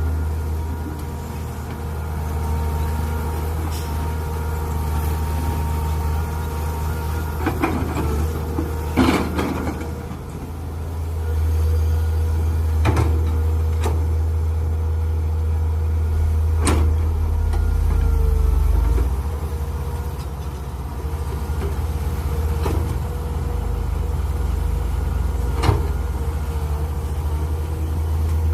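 Mini excavator's engine running under varying load, with a thin steady whine, and sharp knocks every few seconds, about seven in all.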